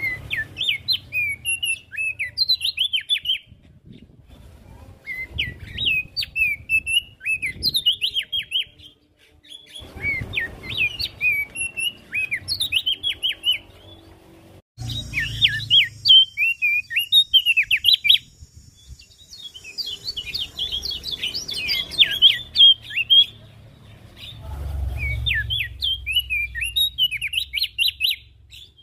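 Opior jambul (Javan grey-throated white-eye) singing in repeated bursts of quick, high chirping notes. Each phrase lasts two to four seconds, with short pauses between.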